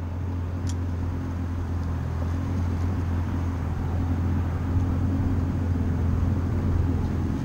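Jet boat's inboard engine idling, a steady low hum.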